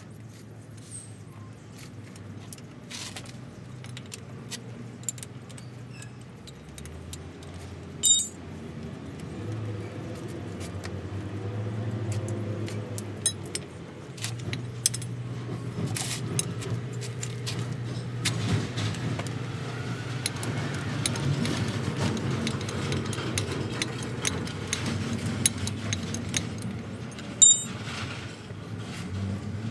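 A steady low motor hum that shifts in pitch a couple of times and grows louder in the second half, with scattered metallic clinks and taps over it; the loudest clinks come about 8 seconds in and near the end.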